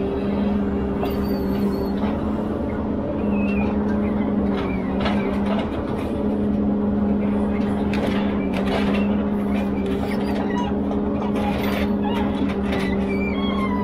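Ponsse Elephant forwarder's diesel engine running steadily with a constant hum while its crane loads logs, with a few knocks partway through.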